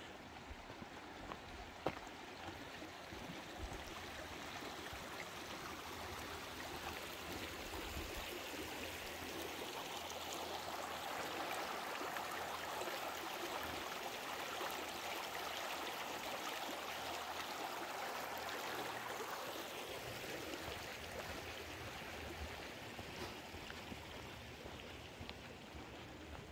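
Rushing Alpine mountain stream that grows louder, holds for several seconds, then fades again as it is walked past. There is a single sharp click about two seconds in.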